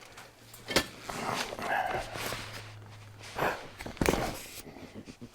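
A few sharp knocks and clunks of truck seat parts being handled and fitted together, with a steady low hum that stops about three seconds in.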